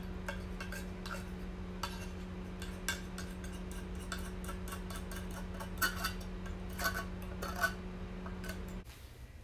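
Tuna can's loose metal lid scraping and tapping against the open tin as the drained tuna is pushed out into a plastic bowl: irregular clicks and scrapes, a few sharper knocks in the second half. A steady low hum runs underneath and cuts off suddenly near the end.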